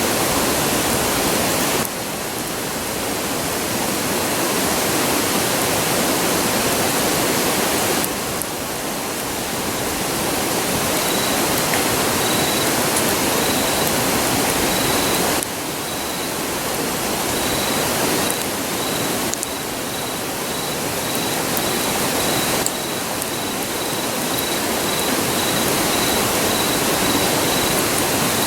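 Steady rushing of a river. The loudness drops suddenly about every seven seconds and creeps back up each time. From about ten seconds in, a faint high-pitched chirp pulses a little over once a second.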